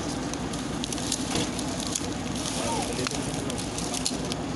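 Diesel engines of heavy earth-moving machines running steadily, with many scattered crackles and clicks over them.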